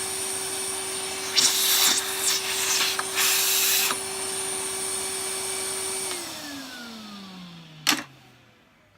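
A small electric motor running steadily with a whine, with two spells of loud rattling hiss, then switched off about six seconds in and winding down over a couple of seconds. A sharp click comes near the end.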